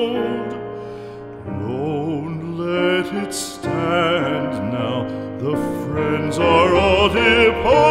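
Classical art song: a trained voice singing with wide vibrato over instrumental accompaniment, softening briefly about a second in before swelling again.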